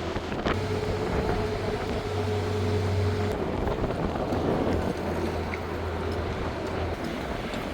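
An engine running steadily with a low hum and a rushing, noisy background; a higher steady tone in the sound drops out about three seconds in.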